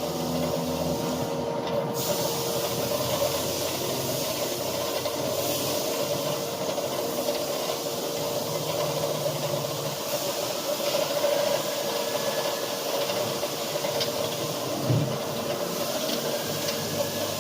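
CNC router with a water-cooled spindle running and cutting: a steady hiss over a constant spindle hum, with a faint whine that rises in pitch twice in the second half.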